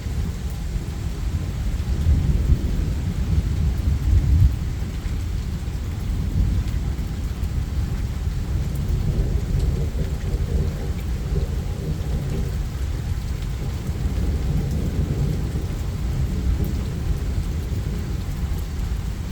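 Thunderstorm: steady rain with continuous rolling thunder rumbling low, swelling louder about two to four seconds in.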